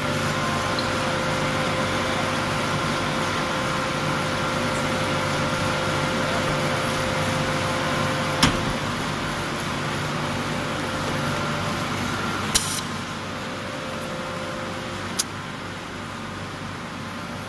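Steady mechanical drone with a humming tone from a double-mould pressed wood pallet machine and its hydraulic unit running. A sharp knock comes about eight and a half seconds in, then two shorter clicks, and the drone eases slightly after the first of those clicks.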